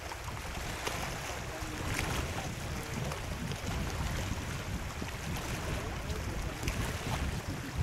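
Wind buffeting the microphone over lake water, with waves lapping and a few faint clicks.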